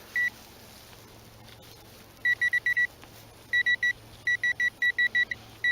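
Metal detector signalling a buried metal target: short beeps of one high tone, one near the start and then several quick bursts of about five or six beeps a second.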